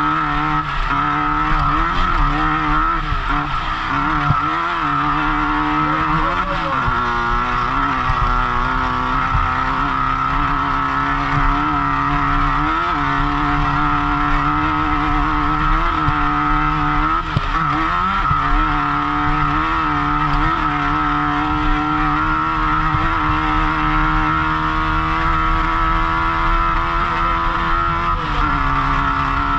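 Off-road race car's engine running hard at racing speed, its pitch rising and dipping over and over with throttle and gear changes.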